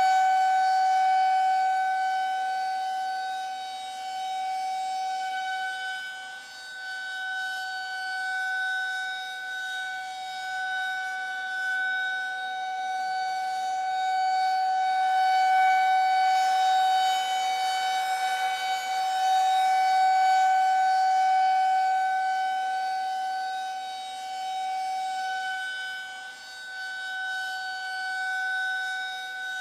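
Air-raid siren sounding the public warning signal to take shelter: one held high tone that stays at a steady pitch while it swells and fades in loudness every several seconds.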